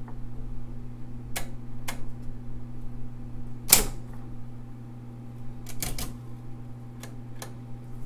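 Royal Award Series 1200 electric typewriter with its motor humming steadily, and a handful of sharp mechanical clacks from its carriage and keys, the loudest about halfway through.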